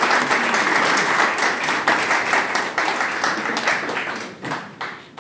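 Audience applauding, a dense patter of many hands clapping that thins to a few last scattered claps near the end.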